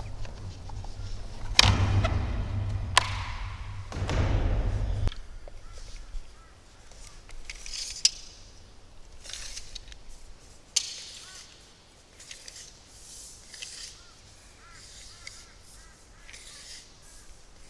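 Handling noise as the plastic access lid on top of a corrugated steel water tank is worked loose and lifted off: a few seconds of scraping and rumbling with a sharp knock about three seconds in. Then scattered clicks and rattles of a steel tape measure being pulled out and lowered into the tank, with faint bird calls near the end.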